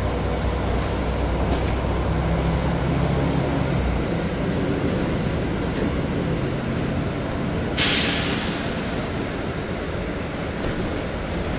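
City bus heard from inside: a steady running noise with a low hum that stops about four seconds in. Near the end comes a sudden sharp hiss of compressed air from the bus's pneumatics, fading over a couple of seconds.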